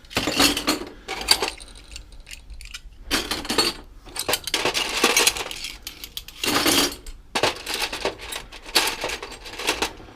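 Loose brass hardware clinking and jangling together as it is sorted through by hand: a run of sharp metallic chinks in clusters with short pauses.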